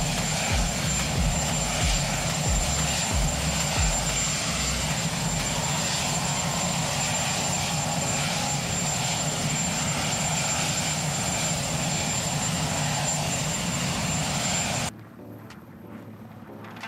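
Steady roar of an airliner cabin in flight, engine and air noise with a thin high whine, with a few low thumps in the first few seconds; it cuts off abruptly near the end.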